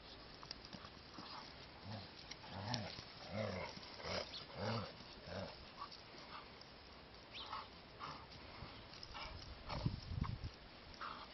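Dogs play-growling as they tug a toy between them: a Gordon setter and a smaller long-haired dog. There is a run of short low growls between about two and five and a half seconds in, and a louder low growl near the end.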